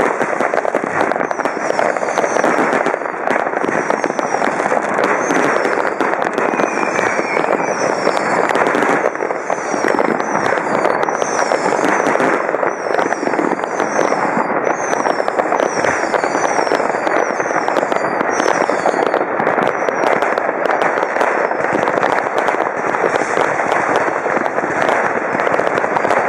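Many fireworks and firecrackers going off at once in a dense, unbroken crackle of pops and bangs. Many short, high, falling whistles sound over it until about two-thirds of the way through.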